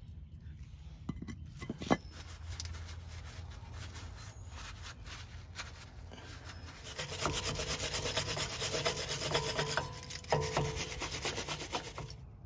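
A rag scrubbing back and forth on a bare steel wheel hub face, a rhythmic rubbing that grows louder past the middle and stops just before the end. Before it, quieter brushing of grease onto a brake caliper bracket, with a couple of sharp clicks.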